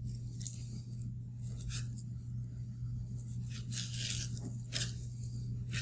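Knife scraping and slicing through salmon flesh along the spine, in several short scratchy strokes, over a steady low hum.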